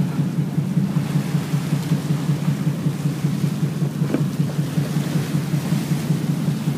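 A boat's engine running with a steady, throbbing low rumble, heard from the open deck under a steady hiss of wind on the microphone.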